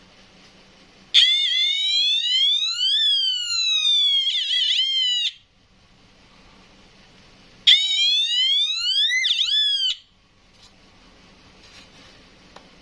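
Electronic water alarm sounding a siren twice, a sweeping tone that rises, falls, then warbles quickly. The first burst lasts about four seconds and the second about two, the signal that its sensor has detected water.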